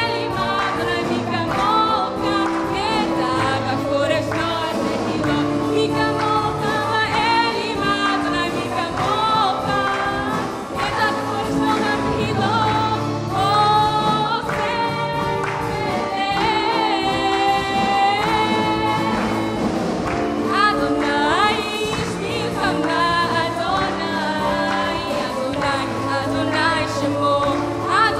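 Worship song: voices singing with vibrato over instrumental accompaniment with sustained bass notes.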